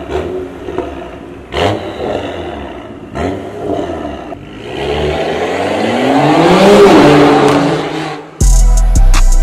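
BMW E92 335i's turbocharged straight-six revved through its exhaust in an underground car park: three sharp throttle blips, each falling away, then a longer rise in engine pitch as the car accelerates, easing off near the end. Electronic music with a drum beat cuts in suddenly near the end.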